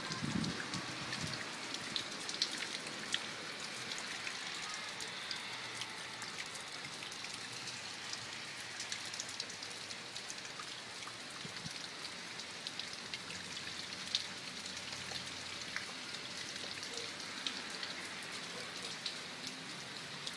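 Steady rain falling on a street, pavement and lawn, an even hiss with many scattered closer drops ticking.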